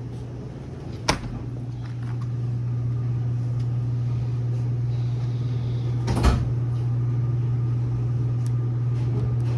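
Two sharp door clunks, about one second and about six seconds in, over a steady low hum.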